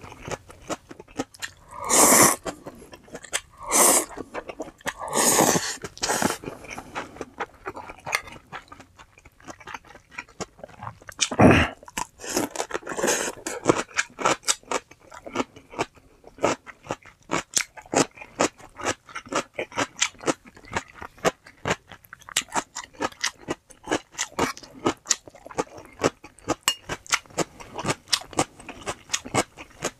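Close-up eating sounds: instant ramen noodles slurped a few times in the first half, with steady crisp chewing and crunching, likely of chonggak (ponytail radish) kimchi, that carries on through the rest.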